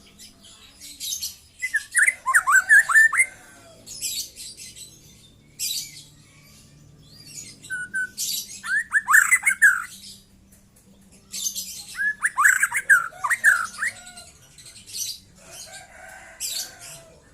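Young white-rumped shama singing: three bursts of quick whistled notes, with harsh, scratchy high notes scattered between them.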